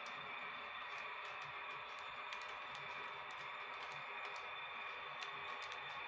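H0-scale model train of passenger coaches rolling along the layout's track: a steady running noise with irregular light clicks as the small wheels pass rail joints and points.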